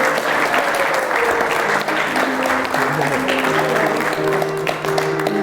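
Wedding guests applauding over music with steady held notes.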